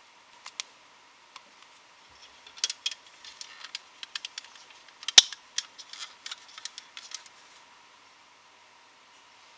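Clear plastic loom pegs and bases clicking and rattling as rubber loom bands are stretched and hooked onto them and the loom is handled: a flurry of light clicks, densest around the middle, with one sharper click a little past halfway.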